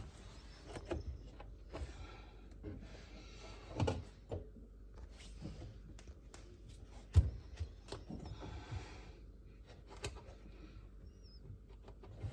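Scattered knocks and clunks with rustling handling noise; the sharpest knock comes about seven seconds in.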